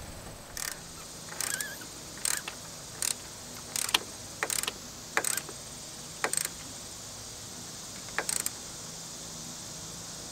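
Small ratchet wrench clicking in nine short bursts, roughly one every three-quarters of a second, as it tightens a car battery terminal nut; the strokes stop about eight seconds in.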